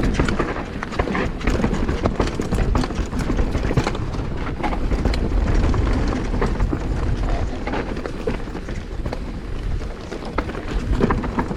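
Mountain bike riding fast over a rough trail: tyres on dirt and roots with a continuous rattle of many small knocks from the bike, over a steady low rumble.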